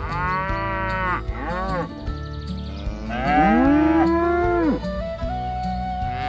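Cows mooing: one call at the start, a short one just after, and a longer, louder moo about three seconds in, over steady background music.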